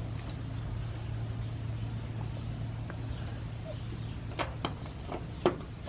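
A few light clicks and taps near the end as a turn signal lamp housing and its screws are handled and lined up, over a steady low hum.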